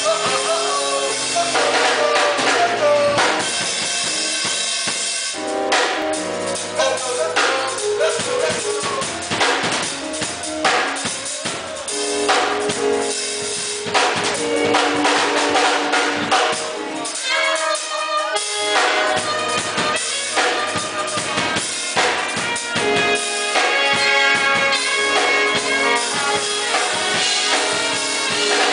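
Music with a drum kit keeping a beat under pitched instruments. The low end drops out briefly about two-thirds of the way through.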